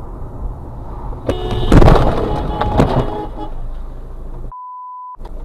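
Car interior road noise, then a car horn honking in blasts with a loud rush of noise about two seconds in as a car cuts across close in front. Near the end everything drops out for a steady beep about half a second long.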